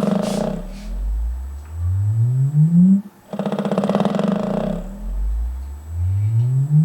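Velodyne DD-15 subwoofer playing a bass tone that rises in pitch over about two seconds, twice. Each rise is followed by about a second and a half of harsh buzzing rattle: the rattling fault in the subwoofer.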